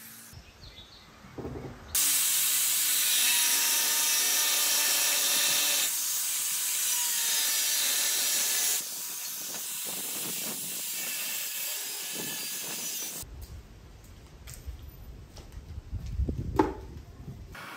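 Angle grinder with a cutting disc cutting through square steel tubing: a loud steady hiss of the cut for about eleven seconds, a little quieter in its later part. After it stops, a few scattered knocks, the sharpest near the end.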